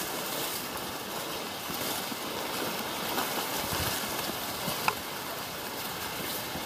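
Steady rush of creek water tumbling over a waterfall, heard through the bush, with a single sharp click about five seconds in.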